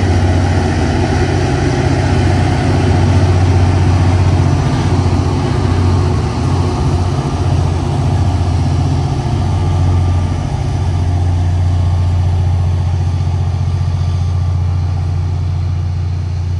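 Two Aurizon 2300 class diesel-electric locomotives climbing a grade under load as they pass by, their diesel engines running with a loud, steady low drone.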